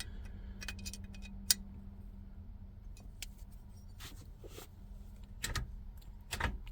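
Scattered light metallic clicks and clinks from hand tools and shifter hardware being worked on, over a steady low hum.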